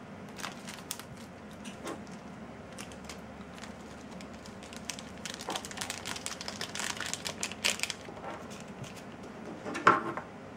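Small plastic parts bag crinkling and rustling as it is handled and opened, a run of small crackles that grows busier after the middle. A louder short handling sound comes near the end.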